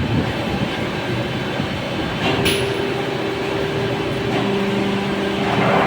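CNC lathe (linear-guide turning machine) running during a reaming operation: steady machining noise, with a brief click about two and a half seconds in. A steady hum comes in about then, and a lower hum joins a little past halfway.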